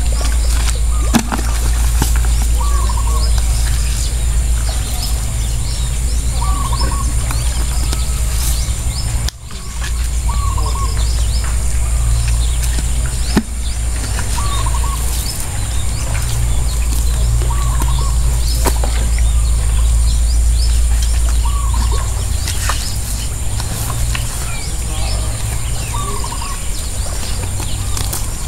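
A bird repeats a short chirping call about every one and a half to two seconds over a steady low rumble and a steady high insect drone. A few soft clicks and rustles come from a cast net being handled as fish are picked from its mesh.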